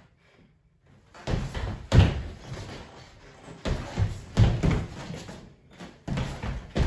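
Two fencers' sneakered feet slapping and landing on a hardwood floor during lunges and recoveries: a run of heavy thuds, the loudest about two seconds in, with further pairs of thuds around four and six seconds in.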